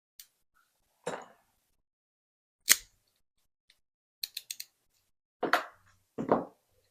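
Small metal clicks and knocks from a high-security lock and lockpicking tools being handled: a single sharp click, a quick run of four light clicks, and several duller knocks.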